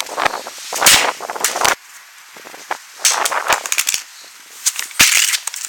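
A smartphone slammed onto the floor over and over, about four times: each hit is a sharp crack followed by a short clatter as the phone bounces.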